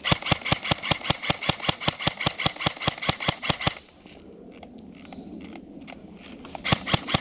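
Airsoft gun firing a rapid stream of shots, about seven a second, for nearly four seconds, then a pause with a few scattered shots, then another rapid string near the end.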